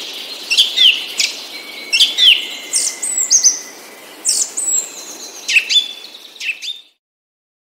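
Wild birds calling: repeated short high chirps and downward-sweeping whistles over a steady background hiss, cutting off abruptly near the end.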